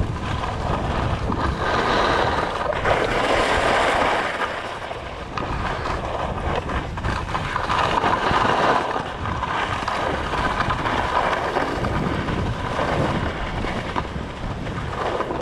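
Wind buffeting a GoPro HERO 7 Black's microphone during a fast ski descent, a steady low rumble. Over it, skis hiss and scrape on packed snow, swelling and fading several times with the turns.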